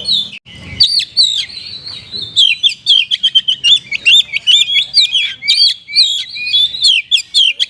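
Oriental magpie-robin (kacer) singing a rapid string of short, sharp chirps and whistled notes that quickens into fast repeated rising notes over the second half. The rapid-fire notes are mimicked 'kapas tembak' phrases in the song.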